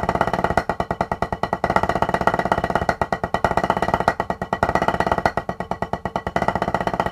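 Wooden drumsticks playing a rapid, even stream of strokes on a drum practice pad: a fivelet roll exercise at 110 bpm, groups of five singles alternating with double-stroke diddles pulled out with the fingers.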